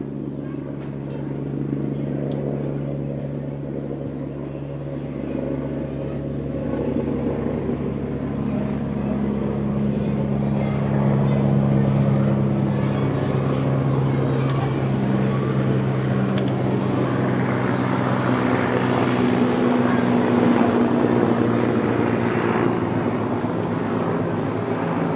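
Helicopter engine and rotor running, a steady low drone with rapid rotor chop that grows louder over the first half and stays loud.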